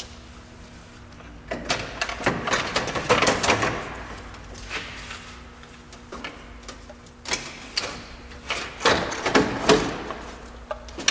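A 1999 Honda Civic radiator being worked up and out of its mount in the engine bay: clattering knocks and scrapes as it bumps against the radiator support and drags past its hoses, in two spells of handling.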